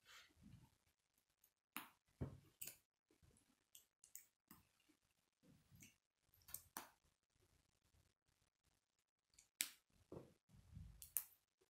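Faint clicks of plastic K'nex rods and connectors being snapped together and handled: scattered single sharp clicks, a few seconds apart, with soft rustles in between.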